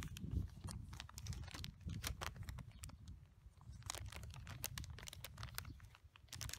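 Clear plastic zipper bag crinkling while its press-seal zip is pressed shut by hand, giving a quick run of small irregular clicks, over a low rumble.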